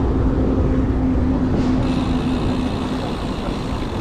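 Steady wind rumble and riding noise on the microphone during a bicycle ride, with a low steady hum that stops about two-thirds of the way through.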